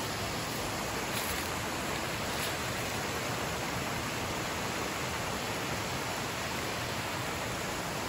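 A creek running steadily over rocks and small cascades: an even rushing hiss.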